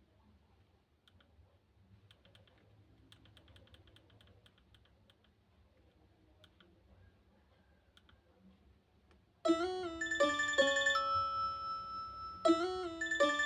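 Faint button clicks for about nine seconds, then the Nokia 1315 ringtone starts suddenly and loud from a Nokia 110 phone's loudspeaker: a melody of bright electronic notes, its opening phrase coming round again about three seconds later.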